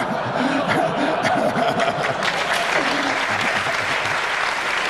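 Audience applauding, the clapping thickening after about a second.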